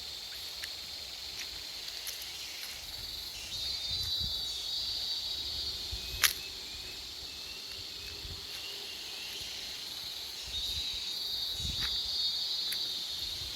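Forest insects trilling in a steady high chorus that swells louder twice, once around four seconds in and again near the end. A single sharp click about six seconds in.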